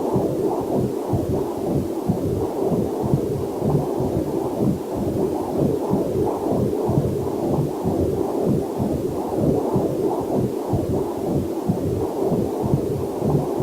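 Fetal heartbeat picked up by a fetal Doppler monitor: fast, even whooshing pulses, a little over two a second, with a faint waterfall hiss beneath.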